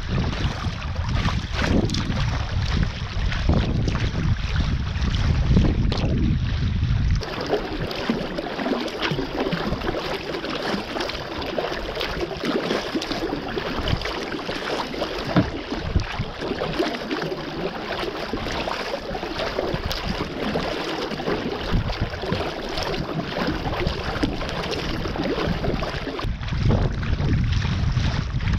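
Sea kayak being paddled through choppy sea: water splashing and slapping against the hull and paddle, with wind buffeting the microphone. A low wind rumble dominates at first, drops away about a quarter of the way in, leaving the splashing clearer, and comes back near the end.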